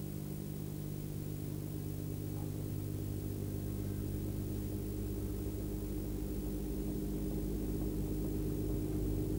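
Steady low electrical hum of several layered tones, growing slowly louder, with nothing else heard over it.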